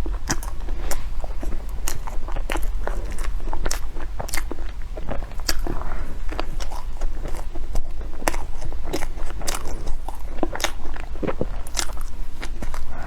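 Close-miked eating of baked goods: biting and chewing with many irregular sharp mouth clicks and crackles.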